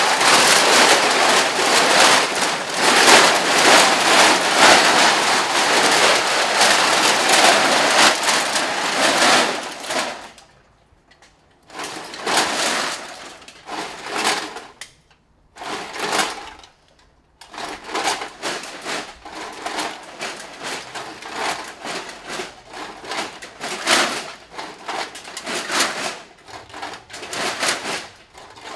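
A mass of empty aluminium drink cans rattling and clattering together in a dense, continuous rush. About ten seconds in it breaks off, then returns in shorter bouts and scattered clinks.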